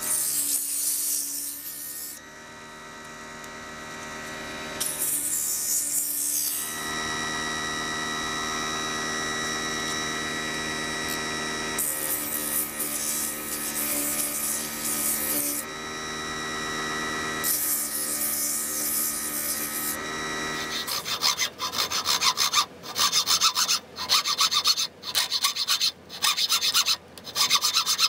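Mini wood lathe motor running with a steady whine while a wire is pressed against the spinning poplar handle in several bursts of friction rubbing, burning in a decorative line. From about two-thirds of the way in, hacksaw strokes at about two a second as the turned piece is sawn loose.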